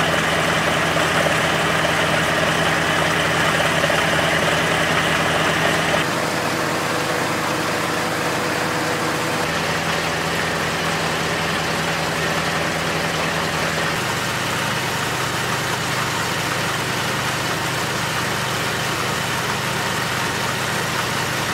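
The Ford LGT 165's 16 hp Kohler K341 single-cylinder engine runs steadily, driving the freshly repaired two-stage snowblower. A higher whirring on top drops away abruptly about six seconds in, and the engine note shifts again near fourteen seconds.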